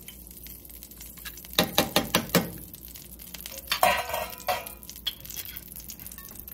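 Kitchenware clattering: a quick run of about five sharp clicks and knocks, then about two seconds later a louder clink that rings briefly, like dishes or utensils being handled and set down.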